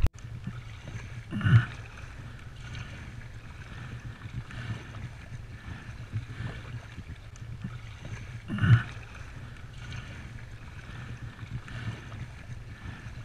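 Water sloshing and lapping against a plastic sit-on-top fishing kayak as it is paddled across choppy water, with wind rumble on the microphone. Two brief louder sounds stand out, about a second and a half in and after eight and a half seconds.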